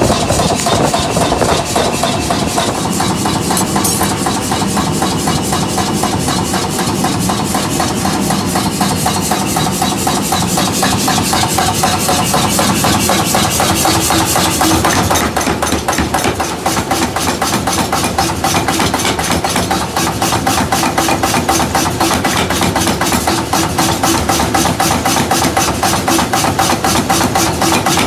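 Workshop machinery running steadily with a fast, even knocking rhythm.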